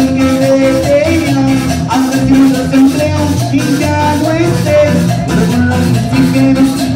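Live norteño band playing dance music with a steady beat, loud and reverberant in the room.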